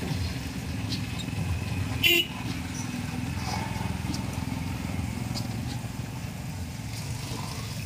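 A motor engine running with a steady low rumble, with one short, sharp sound about two seconds in.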